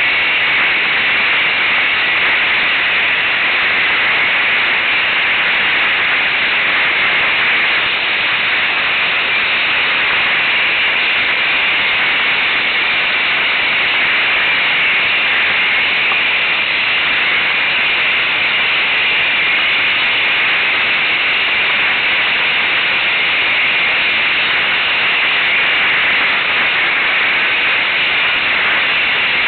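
Steady, loud static-like hiss that does not change, with no engine note or other sound standing out of it.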